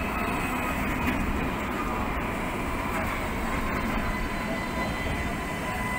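Sydney Light Rail Alstom Citadis tram rolling slowly past close by along the platform: a steady rumble of wheels and running gear with a faint high whine.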